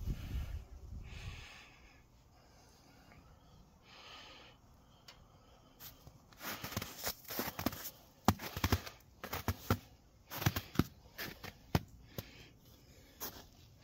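Footsteps crunching in snow, an irregular run of short crunches about two a second starting about six seconds in. A low rumble on the microphone fades out in the first two seconds.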